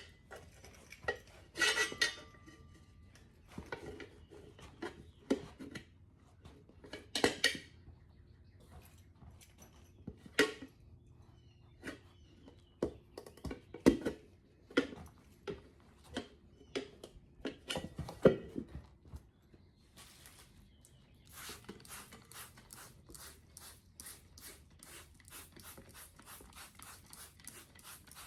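Metal tire irons clanking and clinking against a motorcycle wheel rim as a tire is pried on by hand: irregular sharp knocks and scrapes. From about two-thirds of the way in, an even run of quick clicks, roughly three a second.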